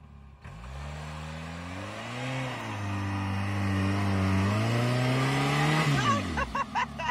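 Jeep Wrangler's engine revving hard under full throttle as it powers up a sand slope with its wheels spinning and throwing sand. The revs climb over the first couple of seconds, hold high, then drop away sharply about six seconds in as the Jeep bogs down.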